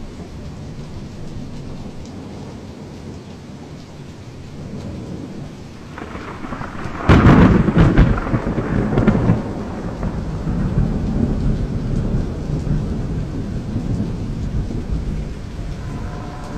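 Heavy rain falling steadily. About seven seconds in a loud thunderclap cracks and rumbles heavily for a couple of seconds, then keeps rolling on lower.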